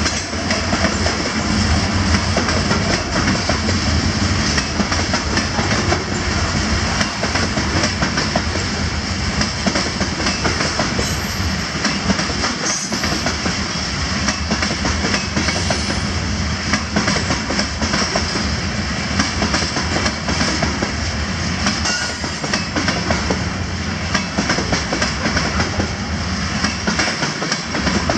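Freight train of covered hopper cars rolling steadily past, a continuous rumble with the wheels clicking over the rail joints.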